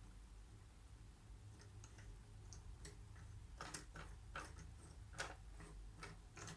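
Jigsaw puzzle pieces being handled and set down on a table: faint, irregular light clicks and taps that come more often in the second half, over a low steady hum.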